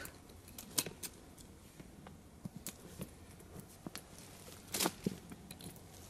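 Faint handling noises: small clinks of a leather pack's strap buckle being undone and the rustle of a wool shirt being pulled out, with one heavier rustle about five seconds in.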